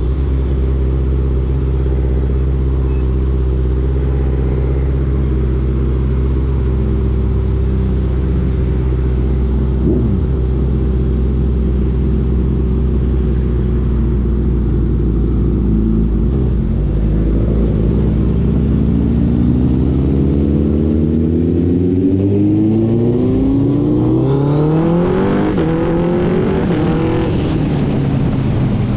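Suzuki Hayabusa Gen3's inline-four running through an Ixil aftermarket exhaust: a steady, even note at low revs for the first half, then one long rising pull as it accelerates, peaking and falling back near the end.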